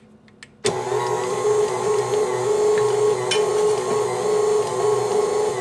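Electric kitchen mixer with a dough blade switched on suddenly about half a second in, then running steadily as it kneads bread dough. A few faint clicks come before it starts, and there is one sharp click about three seconds in.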